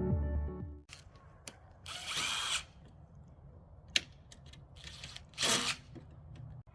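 Power drill or driver run in two short bursts, with a sharp click between them: backing fasteners out while stripping rotted siding off a truck camper. Background music ends about a second in.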